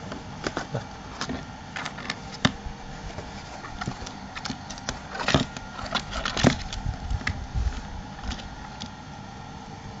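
Irregular light clicks and taps, scattered through the stretch, with two louder knocks about five and six and a half seconds in.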